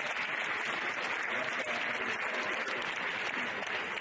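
Audience applauding steadily, a dense spread of many hands clapping.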